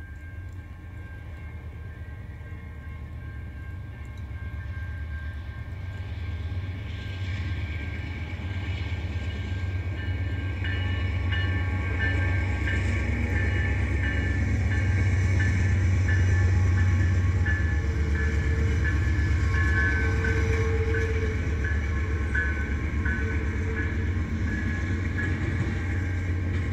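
CN freight train approaching and passing: a diesel locomotive leads double-stacked intermodal cars, with a low rumble that grows louder and peaks about halfway through. From about ten seconds in, a high ringing repeats roughly twice a second.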